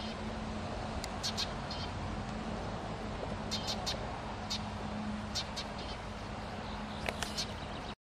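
Small songbirds chirping: short high calls in scattered clusters of two or three, over a steady low hum and a background hiss. The sound cuts off abruptly near the end.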